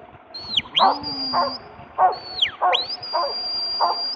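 A huntaway barks steadily, about one bark every half second, as it drives sheep up a hill in a straight hunt. Over the barking, the handler's sheepdog whistle sounds commands: four notes, each a sharp fall or a rise into a long held tone.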